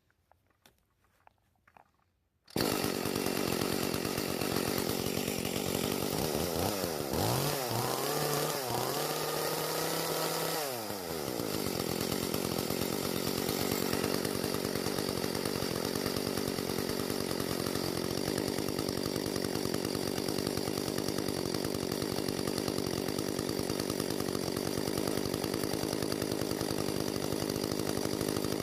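Echo two-stroke chainsaw engine cuts in suddenly about two and a half seconds in, after a few faint clicks. Its pitch dips and rises unevenly for a few seconds, then it runs steadily at high speed. The saw's high-speed carburetor jet has just been turned in about an eighth of a turn.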